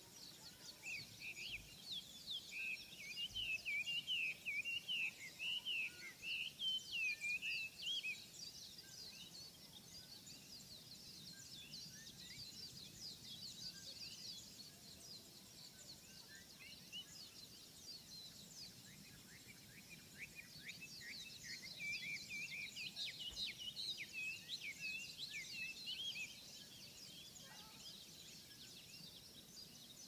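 Many small songbirds chirping and twittering together in high, quick notes. A louder warbling song breaks in from the start for about seven seconds and again for about six seconds some two-thirds of the way through.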